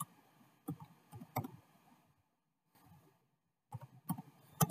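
Computer keyboard keys pressed one at a time while a short code is typed: a handful of separate sharp clicks, with a pause of about two seconds in the middle.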